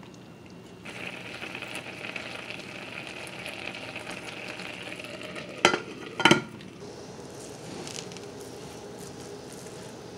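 Rice pot bubbling and sizzling under a glass lid, a steady hiss that starts abruptly about a second in. Two sharp clinks a little over half a second apart just before and after six seconds, as the glass lid is handled on the pot, then a quieter hiss.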